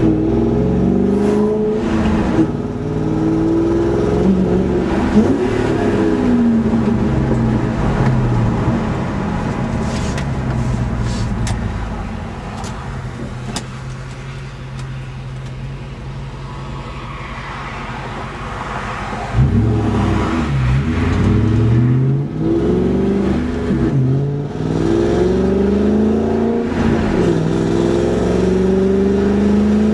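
Car exhaust with a Magnaflow catted X-pipe and Borla Stinger tips, revved up and down repeatedly. It settles to a quieter steady idle with a few sharp ticks, then is blipped hard again from about two-thirds of the way in. The owner suspects the exhaust note points to an exhaust leak.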